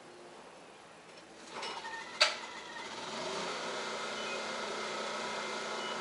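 A single sharp click about two seconds in, then a steady mechanical hum like a motor running, coming in about three seconds in.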